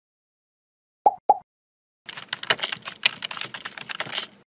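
Two short blips about a second in, then computer-keyboard typing clicks for about two and a half seconds: a sound effect for text being typed into a search bar.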